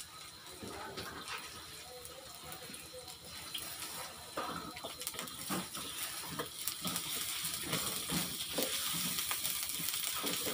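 Chopped aromatics frying in a metal wok over a gas burner, a steady sizzle. From about halfway a wooden spatula starts stirring, with scrapes and knocks against the wok, and the sizzle gets louder.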